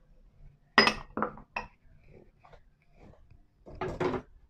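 A metal spoon and white ceramic bowls clinking: a quick run of sharp clinks about a second in, then another few near the end.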